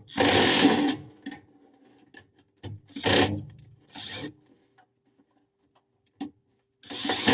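Hands handling furnace wiring and connectors: several short scraping, rubbing sounds, each under a second long, with quiet gaps between them.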